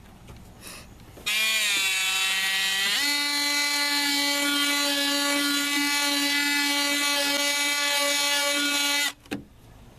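Cordless drill driving a bit into the truck's sheet-metal body to make a ground point: the motor spins up over about a second and a half, whines at a steady pitch for about six seconds, then stops abruptly.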